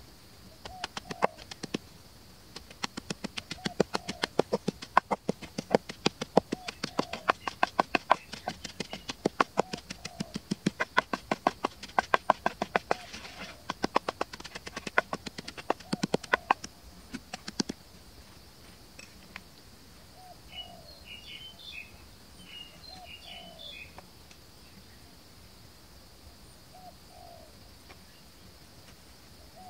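Wooden pestle pounding chilies and garlic in a mortar: rapid repeated strikes, a few a second, that stop about two-thirds of the way through. Birds call throughout, a short low call every few seconds, with a stretch of high chirping after the pounding stops.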